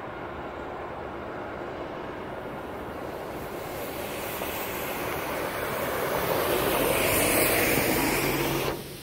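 Airport apron bus passing close by: a steady rumble of engine and tyres that swells over several seconds, then drops off sharply near the end.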